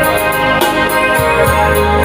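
Live music playing an instrumental passage of a pop song, with no singing and a steady beat.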